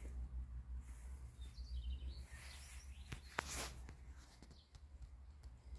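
Outdoor ambience with small birds chirping faintly in the background over a low steady rumble, and a brief sharp scuffling noise about three and a half seconds in.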